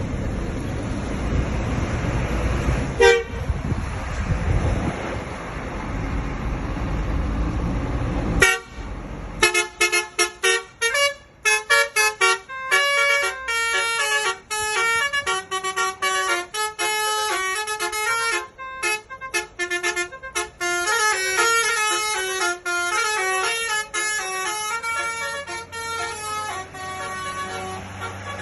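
Bus telolet multi-tone horn of the Basuri type, playing a fast tune of short, stepping notes from about nine seconds in. Before that there is a steady low rumble of engine and road noise, broken by two brief horn notes at about three and eight seconds.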